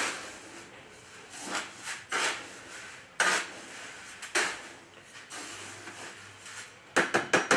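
Metal spoon stirring granular calcite and Corosex media in a plastic bucket: repeated gritty scrapes. A quick run of sharp clicks comes near the end.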